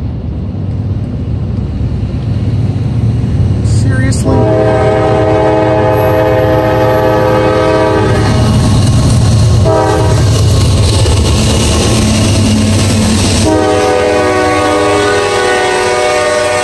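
Norfolk Southern diesel freight locomotive's multi-chime air horn sounding for a grade crossing: a long blast, a short one, then another long one. Under it runs the steady, growing rumble of the approaching locomotives.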